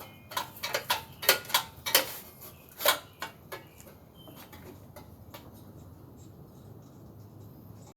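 A quick run of sharp metallic clicks and clinks, some ringing briefly, over the first few seconds, thinning out to a few faint ticks.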